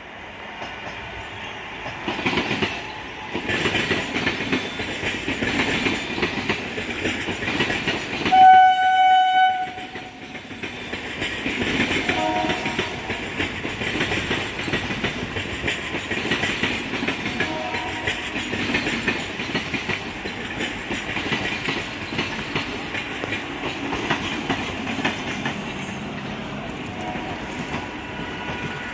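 Indian suburban local train running on the track with a steady rumble and rail clatter, sounding one horn blast of about a second and a half, the loudest sound, roughly a third of the way through.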